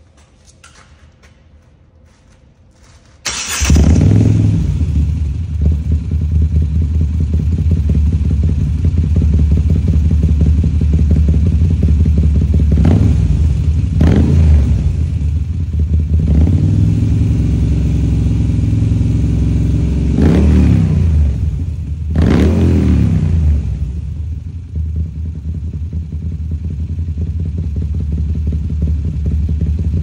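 Moto Guzzi V7's transverse V-twin on an aftermarket exhaust starting up about three seconds in, then idling with four short throttle blips, two close together and then two more a few seconds later.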